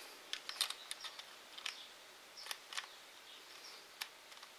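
Faint, irregular plastic clicks and ticks as fingers press the soft, rubberized plastic back cover of an Allview VIVA H8 Life tablet back into place over its SIM and microSD slots. The cover is fiddly to seat again, so there are about eight separate small clicks rather than one snap.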